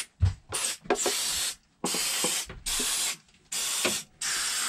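Aerosol spray can hissed in about six short bursts, each roughly half a second long, over the battery terminals and cable lugs as a final clean.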